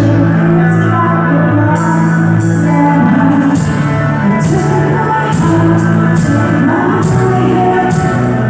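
Live band playing a song through the PA, with a singing voice over the instruments and a steady beat.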